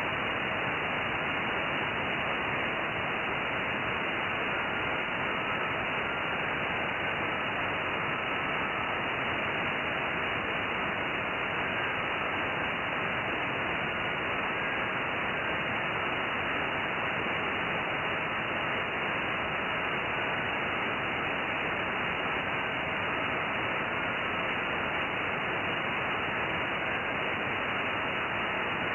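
Steady hiss of a 2-metre SSB receiver (Perseus SDR behind a homemade 144 MHz downconverter), cut off above about 3 kHz by the sideband filter. Buried in it are faint short tones stepping in pitch: a weak JT65 moonbounce signal calling CQ.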